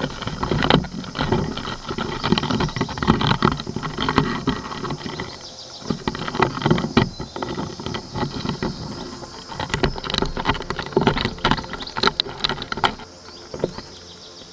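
Two male Miyama stag beetles fighting, close-miked: a dense run of irregular clacks, knocks and scraping as their mandibles, legs and shells grapple against each other and the wood. The scuffle eases off near the end.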